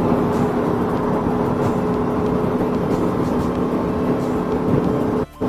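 Aprilia Tuono V4 motorcycle's V4 engine running at a steady cruise, with wind noise over the microphone. The sound cuts out for a moment near the end.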